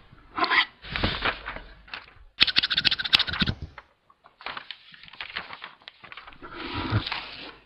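Short bursts of rapid, crisp clicking and rustling, each cutting in and out abruptly, like edited stop-motion sound effects. The densest, loudest burst comes about two and a half seconds in.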